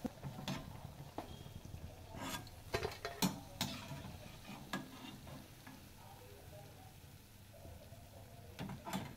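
Metal slotted spoon knocking and scraping against a kadai and a steel plate as fried spinach pakoras are lifted out of hot oil, over a faint frying sizzle. The knocks come in a cluster over the first few seconds, thin out, and return briefly near the end.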